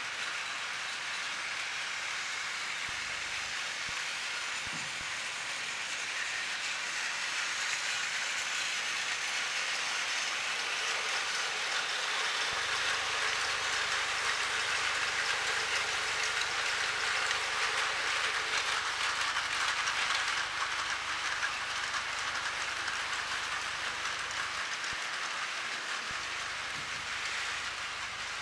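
Battery-powered Plarail toy train running on plastic track, its small motor whirring and wheels clattering. It grows louder through the middle stretch as it comes near, then eases off.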